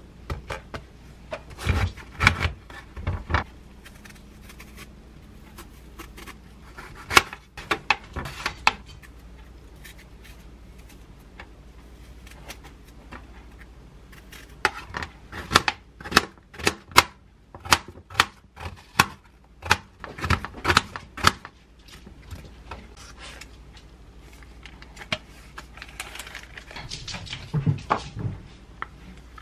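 Kitchen prep sounds: a few knocks as a glass jar, a yogurt tub and an apple are set down on the counter, then a run of quick clicks and scrapes as a small knife peels and slices an apple over a tray, and near the end a spoon scooping thick Greek yogurt into a bowl.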